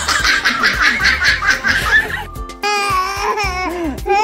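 Laughter: first a quick run of breathy laughs, then, after a cut a little over two seconds in, a baby laughing in high squeals that slide down in pitch.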